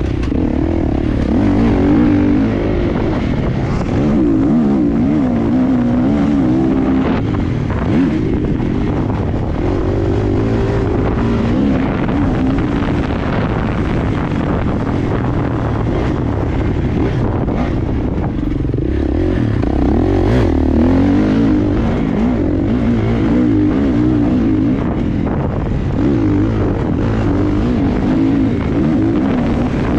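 Motocross bike engine on the track, its pitch rising and falling steadily as the rider works the throttle through the course.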